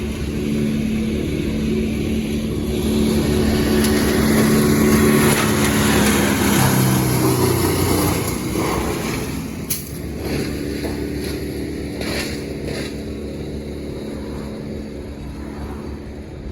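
A heavy engine running steadily. It swells and changes pitch in the middle, then settles lower, with a few sharp knocks in the second half.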